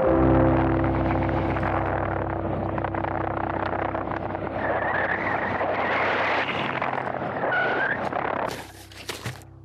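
Small electric radio-control airplane's motor and propeller running in flight: a steady drone with wind noise that dies away about eight and a half seconds in.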